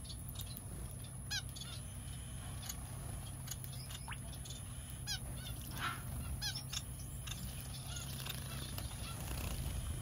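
Small aviary birds, finches and parakeets, calling with short nasal chirps; a quick run of chirps comes about a second in, about five seconds in and again shortly after. A steady low hum sits underneath.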